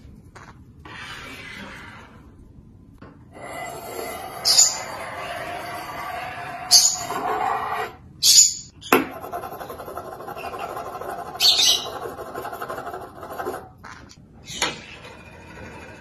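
Metal spoon scraping and sliding across a wooden tabletop in long rubbing runs, with several short, sharp high-pitched squeaks over it and a single sharp knock about nine seconds in.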